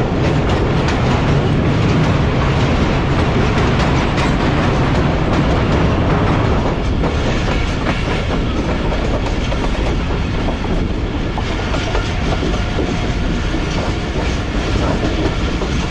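Passenger train running at speed: steady rumble and clickety-clack of the coach wheels on the rails, as the train crosses a railway bridge. About six seconds in the deep rumble eases and a lighter, busier rattle takes over.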